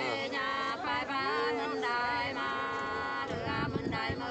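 Unaccompanied sli folk singing, the drawn-out, melismatic two-voice song style of the Nùng people, in long held notes that bend and glide in pitch.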